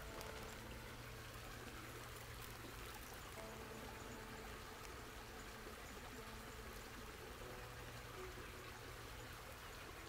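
Small creek flowing over mossy rocks: a steady, even rush and trickle of running water.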